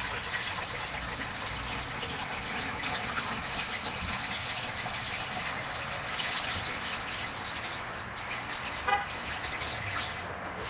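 Engine coolant being poured into a car's cooling system: a steady pour of liquid, with a brief squeak about nine seconds in.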